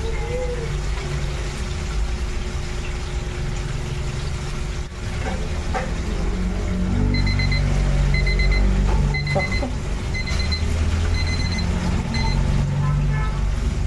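Digital kitchen timer beeping its alarm, short groups of high beeps repeating about once a second for several seconds, over a steady low rumble and hiss.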